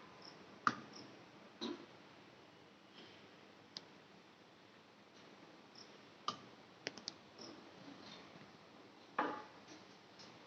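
Scattered sharp clicks and light knocks at irregular intervals over a faint steady hiss, typical of handling work near the furnace. The loudest click comes under a second in, with a quick cluster of three about seven seconds in.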